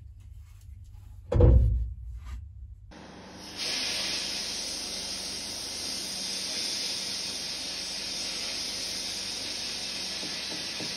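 A heavy low thump about a second and a half in. Then, from about three seconds, a sandblasting gun in a blast cabinet blasts grit at a steel part with a loud, steady hiss.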